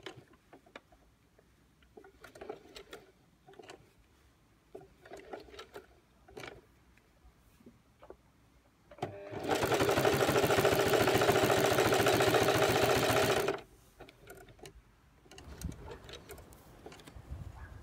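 Singer Heavy Duty 4432 sewing machine with a walking foot stitching black leather. About nine seconds in it runs fast for about four seconds with a rapid, even stitching rhythm, then stops abruptly. Faint scattered clicks and light taps come before and after the run.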